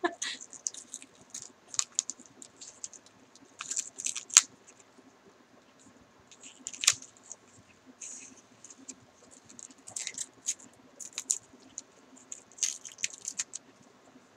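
Shiny gift wrapping crinkling and tearing in short, irregular crackles as a child's fingers pick it open, with a few sharper rips.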